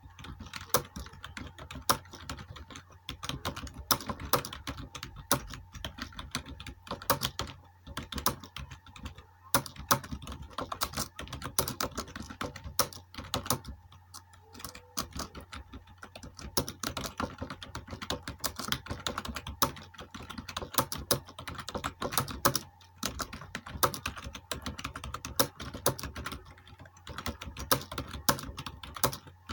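Fast typing on a computer keyboard: a continuous run of key clicks with brief pauses, as a timed typing speed test is typed out, over a low steady hum.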